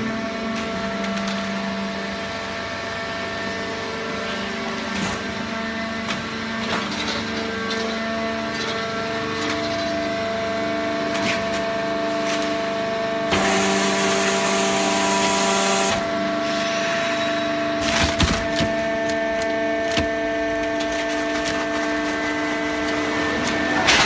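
Horizontal hydraulic baling press running on waste cardboard: a steady hum and whine from the hydraulic power unit, with cracking and creaking as the cardboard is compressed. Near the middle a louder hiss lasts a few seconds, and a few knocks follow a couple of seconds later.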